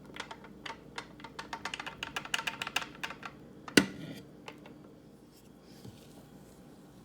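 Kitchen utensil tapping and scraping against a mixing bowl as wet muffin ingredients are poured into the dry, a rapid run of light clicks for about three seconds, then one loud knock just before four seconds in.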